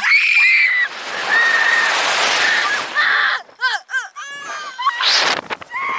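Two girls screaming as a slingshot ride flings them into the air: long, high, held screams over a loud rush of wind on the microphone. About three and a half seconds in they break into short, quick shrieks.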